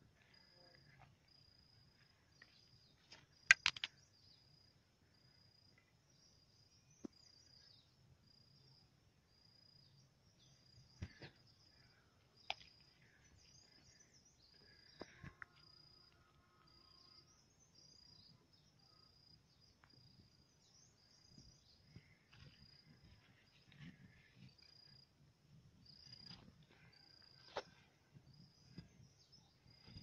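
Faint insect chirping: a short, high buzz repeating about once a second. A few sharp clicks are scattered through it, the loudest a few seconds in.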